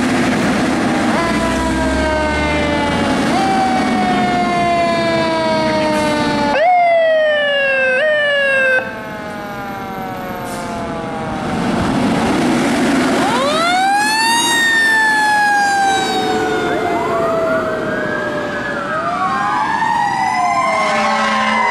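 Fire truck siren sounding as a tractor-drawn aerial ladder truck responds: a run of falling sweeps in the first half, then the siren winds up and slowly falls off, with overlapping rises and falls near the end.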